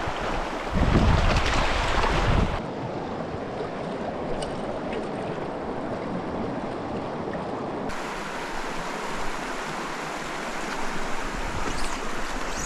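Small rocky stream running over stones and riffles, a steady rush of water. For the first couple of seconds wind buffets the microphone, and the water sound shifts abruptly twice.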